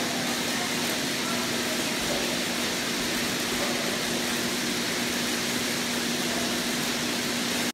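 Metropolis II kinetic sculpture running: toy cars rolling along its plastic tracks and the motors of its lift conveyors, making a steady whirring din with a constant low hum.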